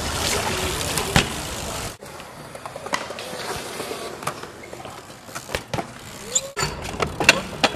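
BMX bike tyres rolling on concrete, broken by sharp knocks and clacks from the bike landing and hitting ledges and ramps. A cluster of knocks comes near the end.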